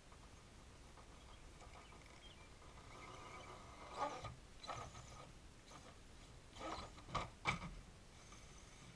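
Faint whine of a radio-controlled rock crawler's electric motor and gears as it climbs, with a few short knocks and scrapes from its tyres and chassis on wood and stone, mostly between about four and eight seconds in.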